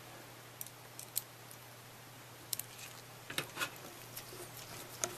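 A handful of small, sharp clicks and ticks from screws being tightened with a screwdriver to mount a hard disk in a computer case's drive bay, over a faint steady hum.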